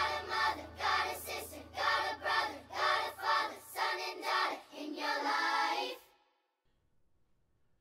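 Singing over backing music, closing out a song: a low sustained tone under the voices drops out about four seconds in, and the last held sung note ends about six seconds in, leaving near silence.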